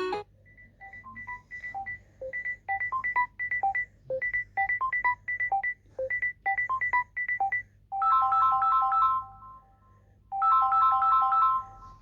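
Samsung Galaxy S22+ ringtone playing: a rapid pattern of short, high plinking notes, then a repeated three-note chord figure played twice near the end.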